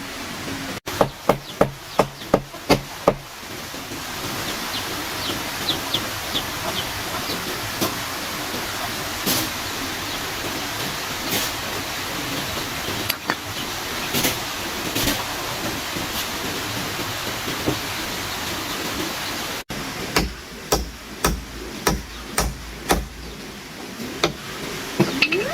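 Quick runs of sharp blows with a hand tool, about three a second. One run comes at the start and another after about twenty seconds, with a steady hiss in between.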